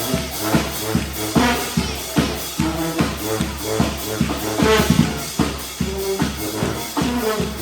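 Upbeat dance music with a steady kick drum on every beat, about two and a half beats a second, over a repeating bass line.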